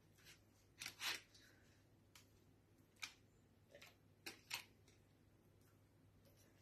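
Faint, short swishes and rustles of a silicone pastry brush spreading melted butter over puff pastry on parchment paper, about six strokes with the loudest about a second in and again past the middle.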